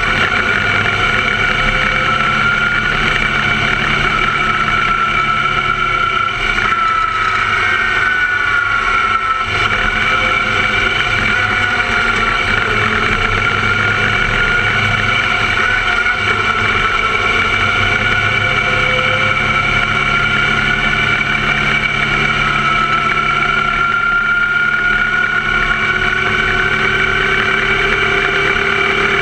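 The engine of a small open-wheel formula car running under load, heard from the onboard camera at the cockpit, its pitch rising and falling as the car accelerates and slows through the corners.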